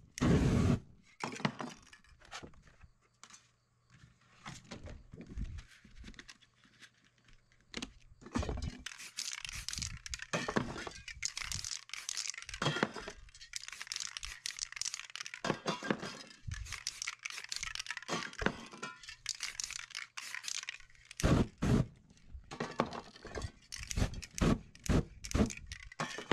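Aerosol spray-paint can hissing in irregular short and longer bursts as paint is sprayed onto the board, with a loud flaring burst right at the start as the spray is set alight to flame the paint.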